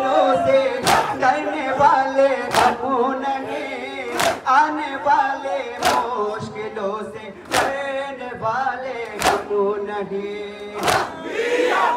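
Men chanting a noha lament in chorus, with sharp slaps of matam, collective chest-beating in unison, landing together about every 1.7 seconds, seven times.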